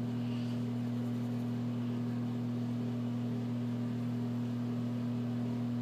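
Steady low hum of two even tones, unchanging, with nothing else standing out.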